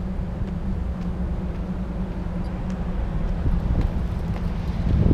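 Steady low city rumble with a faint hum and a few light ticks, swelling briefly near the end.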